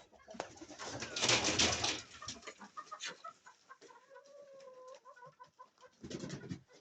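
Chickens in a coop: a loud rustle about a second in, then a drawn-out, wavering low call from a hen about four seconds in, with soft clucks around it.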